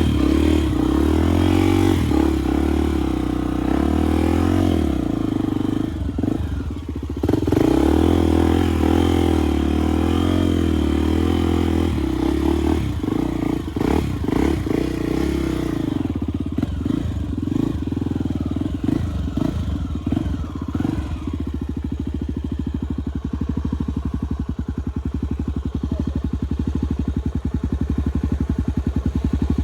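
Honda Tornado enduro motorcycle's single-cylinder four-stroke engine ridden slowly off-road, its revs rising and falling with the throttle. About halfway through it settles into a steadier, lower putter, with clattering knocks over it.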